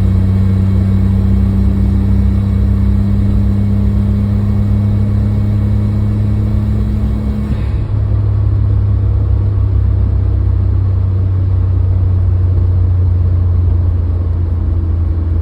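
Suzuki Jimny JB23's turbocharged 660 cc three-cylinder engine running under load while driving, a steady drone that changes suddenly about eight seconds in as its upper tone drops away. The owner is recording a faint whine that sounds under boost above about 2500 rpm, which he most suspects is the turbocharger.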